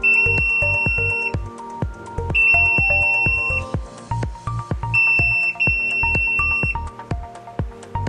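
ENOKER electronic keypad deadbolt beeping while being programmed by its buttons: four long high beeps, one at the start, one about two and a half seconds in and two back to back from about five seconds in. Background music with a steady beat plays under them.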